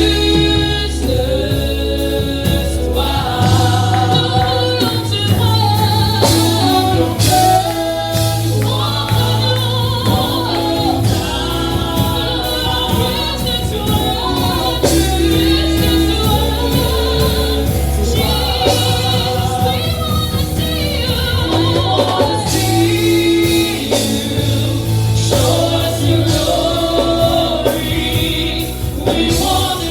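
Gospel worship song with a choir of mixed voices singing over a band with a steady bass line.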